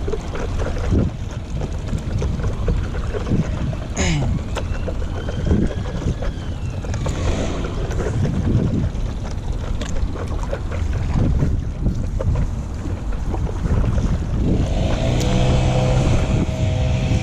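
Wind buffeting an action camera's microphone on a moving stand-up paddleboard, with water splashing and slapping from paddle strokes every second or two. A steady low hum comes in near the end.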